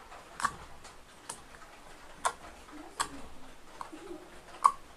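Fingers pressing and pulling at wet, sticky clear slime in a bowl while it is being mixed with activator, giving about six sharp clicks and pops at irregular intervals, the loudest near the end.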